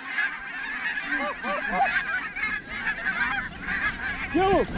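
A large flock of geese calling as it flies over, a dense chorus of many overlapping high calls. A few louder, lower honks stand out about a second in and again near the end.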